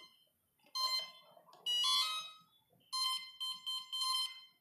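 Brushless quadcopter motor beeping out the ESC calibration tones: a short beep, a rising note, then four quick beeps near the end. The tones confirm that the ESC has taken in its throttle range and is calibrated.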